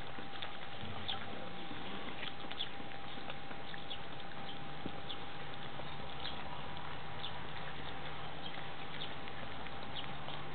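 A litter of Weimaraner puppies eating meat together from a bowl: many small wet smacking, lapping and chewing clicks overlapping without a break.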